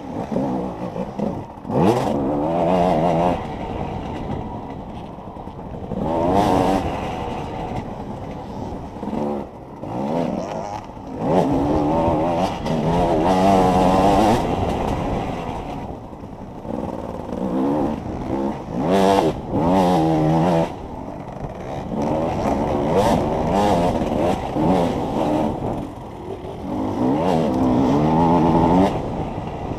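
Enduro motorcycle engine revving up and down again and again as the bike is ridden off-road, with a few sharp knocks along the way.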